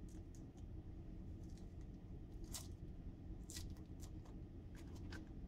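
Faint crinkling and rustling of blue plastic masking being peeled off the threads of a brass mount socket: a handful of short crackles, the loudest about two and a half and three and a half seconds in, over a low steady hum.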